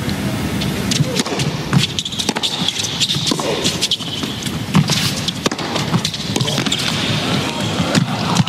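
Tennis rally on a hard court: sharp racquet strikes on the ball every second or so over an arena crowd's steady murmur.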